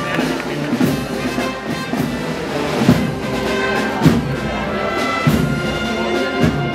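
Brass band playing a slow processional march: held brass chords over a deep drum stroke about once a second.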